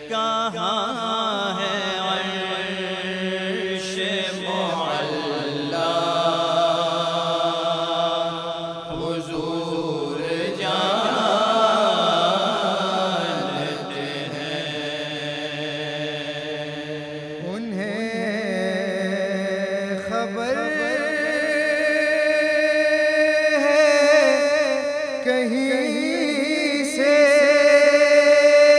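Group of men's voices chanting a naat, drawing the melody out into long held notes that waver and glide, with no clear words.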